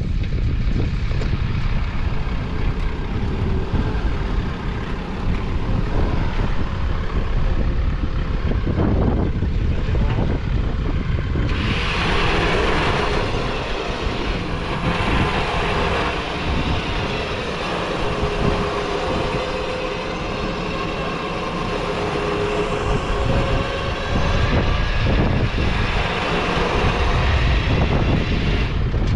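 Four-wheel drive's engine working hard as the vehicle tries to climb out of soft, powdery sand. A low rumble runs throughout, and from about twelve seconds in the engine and tyre noise grows louder and brighter, wavering in pitch.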